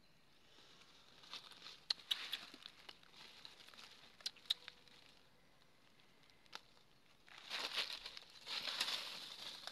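Dry fallen leaves rustling and crunching underfoot, in two spells: about a second in and again from about seven and a half seconds, with a few sharp crackles between.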